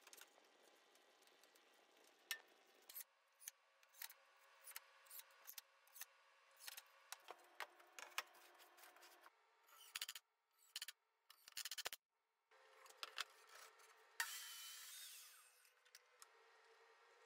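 Quiet handling sounds of wooden pieces on a table saw's crosscut sled: scattered light knocks and clicks as wood is set down and moved, with a scraping rub lasting about a second, some fourteen seconds in.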